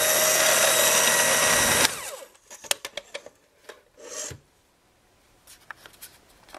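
Electric mixer motor running steadily while beating cake batter, switched off about two seconds in. A few light clicks and a short rustle follow.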